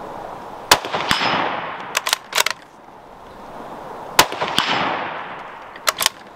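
Two shots from a Ruger American Predator bolt-action rifle in .223, about three and a half seconds apart, each followed by a long echo that fades away. Between the shots come a few sharp metallic clicks as the bolt is worked.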